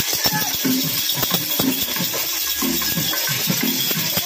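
Rapid metallic jingling and rattling, dense clicks over a bright hiss, with voices mixed in.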